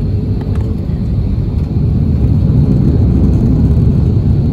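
Cabin noise inside an Airbus A330-300 airliner on approach: a steady, low rushing rumble of engines and airflow, rising slightly about two seconds in.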